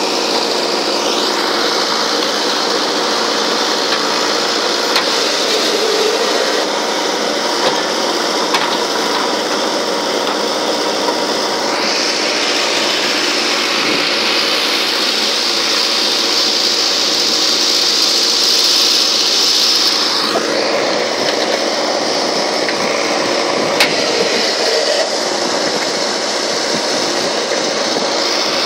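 JCB 3DX backhoe loader's diesel engine and hydraulics running steadily while the backhoe digs and lifts soil, with a higher whine that swells for several seconds in the middle.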